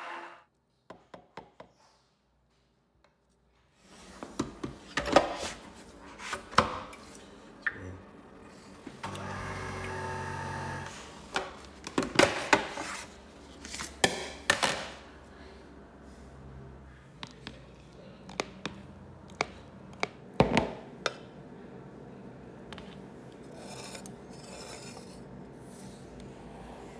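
Kitchen handling sounds starting about four seconds in: a series of knocks, clatters and scrapes of a plastic beaker and utensils on a worktop, with about two seconds of steady machine hum partway through.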